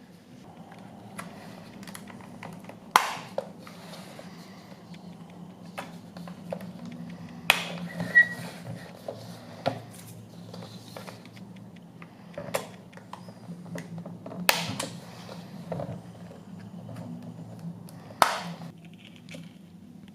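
Small tools and parts being handled on a workbench: a handful of sharp clicks and taps at irregular intervals, over a low steady hum.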